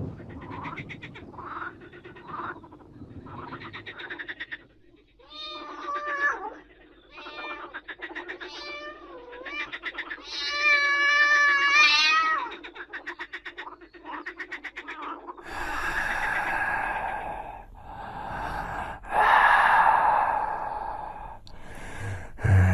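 A cat-like creature yowling. It starts with a rattling growl, then gives several wavering meow-like calls, the longest about ten seconds in. From about fifteen seconds on come loud breathy hisses.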